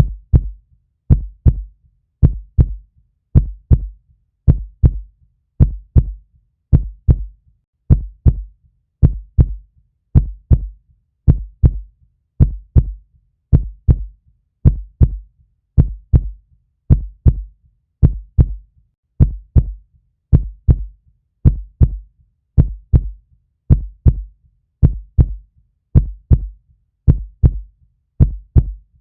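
Heartbeat, a steady lub-dub: pairs of low thumps repeating evenly about once a second.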